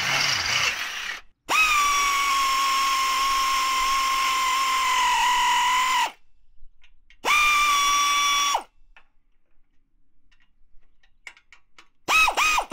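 Cordless drill cutting through the body sheet metal for about the first second. Then a small cordless power tool, a cordless ratchet, whines steadily for about four and a half seconds, runs again briefly, and near the end gives several short pulses as a bolt is run down.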